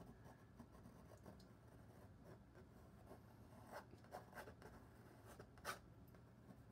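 Faint scraping of a painting knife spreading oil paint across canvas, in several short strokes.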